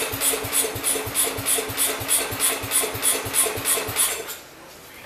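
Small engine of a 1969 Sears Suburban garden tractor going with an even chugging beat of about four to five pulses a second and a steady whine under it, cutting off about four seconds in.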